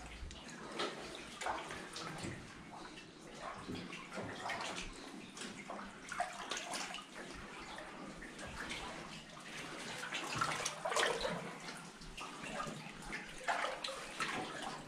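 People wading through water in a flooded mine tunnel: irregular splashing and sloshing of their steps.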